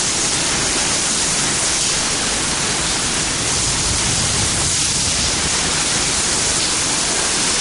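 Heavy rain pouring down steadily in a severe thunderstorm, an even, unbroken hiss.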